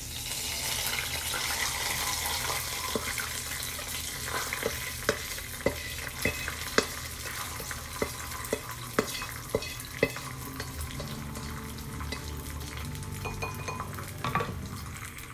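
Hot annatto oil and fried garlic sizzling as they are scraped and poured out of a frying pan, with a utensil tapping against the pan about twice a second through the middle.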